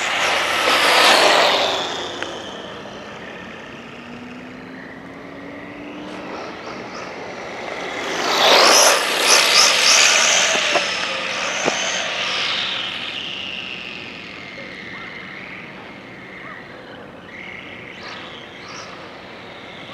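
Traxxas Slash 4x4 RC truck with a Castle 1415 brushless motor speeding past twice, about a second in and again around eight to ten seconds in: a high motor whine over a rushing noise, swelling and falling away each time. Between the passes a fainter whine rises in pitch.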